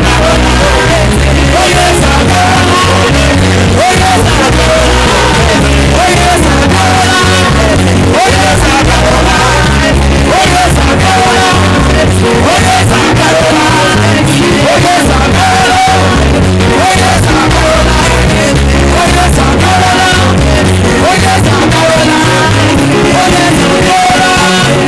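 Loud music with singing voices over a moving bass line and drums.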